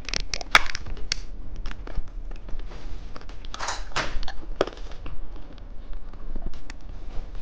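Plastic candy packaging being handled and opened: a run of sharp clicks and crackles, with a denser crinkling rustle about three and a half seconds in.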